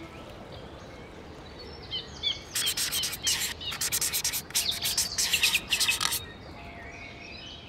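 Small birds chirping: faint scattered chirps throughout, with a burst of loud, rapid chirping from about two and a half to six seconds in.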